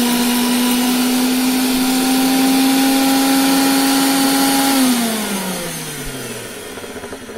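Electric mixer grinder with a steel jar grinding a wet mint and coriander chutney paste. It runs at a steady, high whine that creeps slightly up in pitch, then is switched off about five seconds in and winds down with a falling pitch.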